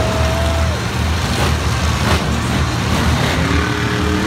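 Several monster trucks' supercharged V8 engines running together as the trucks drive slowly in a line, a loud, steady, low rumble.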